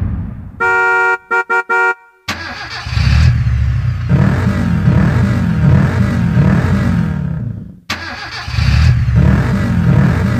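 Car sound-effect samples played on a Casio CT-X700 keyboard. A horn sounds once long and three times short, then a car engine sound runs with a wavering pitch for several seconds. It cuts off briefly near the end and starts again.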